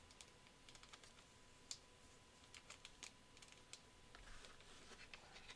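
Near silence, broken by scattered faint clicks and crinkles of a trading card booklet being handled and slid into a clear plastic sleeve, with a soft rustle about four seconds in.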